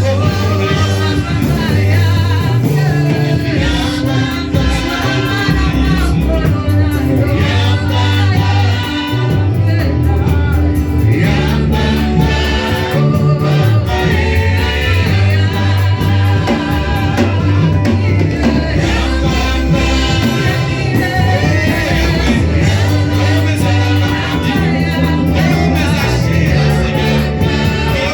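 Gospel music: several voices singing together over a band with a strong bass line that moves from note to note.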